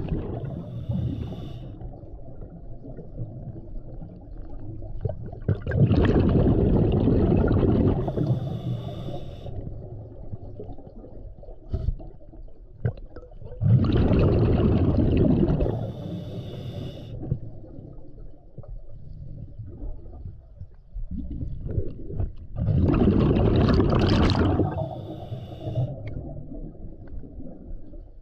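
Scuba diver breathing through a regulator underwater: three loud rushes of exhaled bubbles, each about two seconds long and roughly eight seconds apart, with a low underwater rumble between them.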